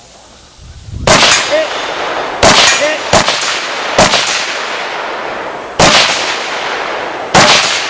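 Six AR-15 rifle shots in 5.56 fired at an uneven pace, each ringing out with an echo. A short ring from the steel target follows some of them.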